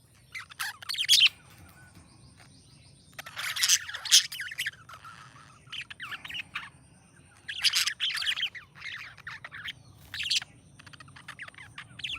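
Budgerigar chirping in short, quick bursts, about six of them, each lasting around a second.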